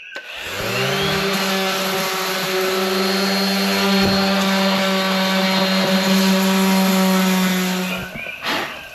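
Electric power tool motor spinning up, running steadily at a constant pitch for about seven seconds, then switching off near the end.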